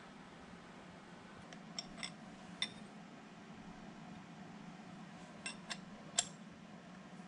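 Steel wrenches clinking against the milling machine's footstock and table while the footstock is adjusted: sharp, ringing metal clinks, three about two seconds in and three more around five to six seconds, the last the loudest, over a faint steady hum.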